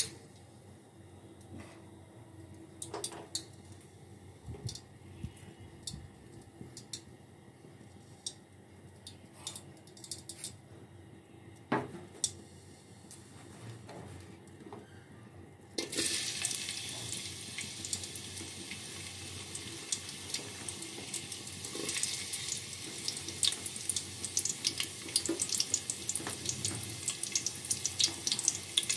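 Oil heating in a metal cooking pot, with only faint scattered ticks. About halfway through, sliced onions go into the hot oil and it breaks into a loud, steady sizzle with dense crackling.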